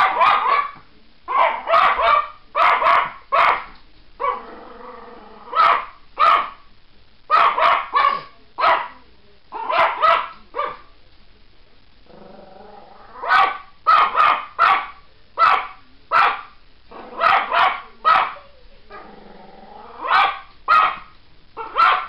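A Chihuahua barking at birds, sharp high barks in quick clusters of two to four with short pauses between, and low growls in some of the pauses.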